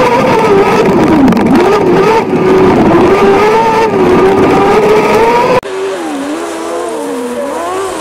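Race car engine heard onboard, loud and revving up and down as the car slides over snow. About five and a half seconds in, it cuts suddenly to a quieter engine note from a kart cross buggy, its pitch wavering up and down as it drifts on the snow.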